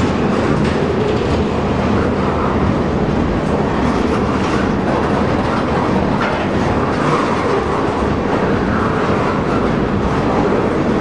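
Loaded freight cars rolling past close by: a steady, loud rumble and rattle of steel wheels on the rails, with a few sharp clacks.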